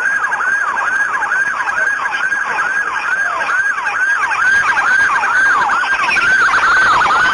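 Police car siren in a fast yelp, its pitch sweeping down and jumping back up about twice a second.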